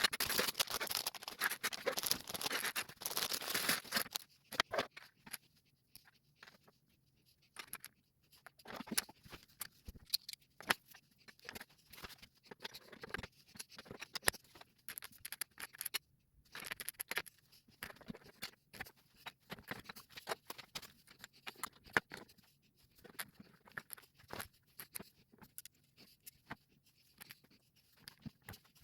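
Plastic rustling for about the first four seconds, then scattered light clicks and taps of plastic LEGO pieces being picked up and pressed together during a build.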